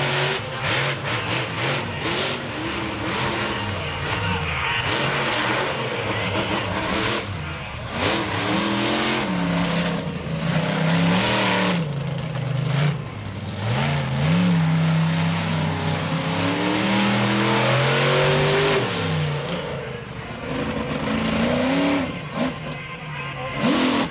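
Monster truck supercharged V8 engines revving hard, their pitch climbing and dropping again and again.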